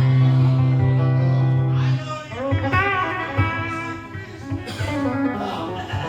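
Music led by guitar, with a low bass note held through the first two seconds before shorter guitar notes take over.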